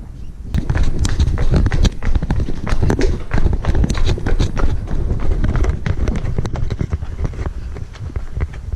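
Quick, irregular footsteps, as of someone running or hurrying along a trail, over heavy low rumble of wind on the microphone.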